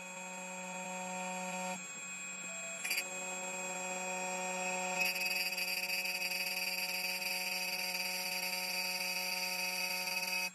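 CNC dimple-key cutting machine running with a steady motor hum and whine. About five seconds in, a louder, higher hissing whine joins as the cutter mills into the key blank, holding until it cuts off suddenly at the end.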